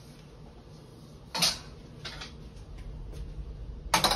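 A wok being handled and set down onto a steel wok ring on an electric coil burner: two sharp metal clanks, one about a second and a half in and a louder one near the end, with lighter clicks between.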